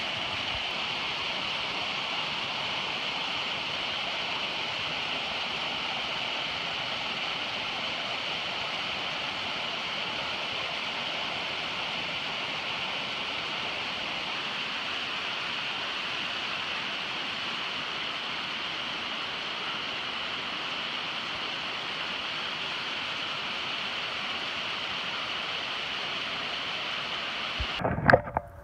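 Creek water cascading over boulders and small falls, a steady rushing hiss. Near the end a loud knock, and the water sound cuts off.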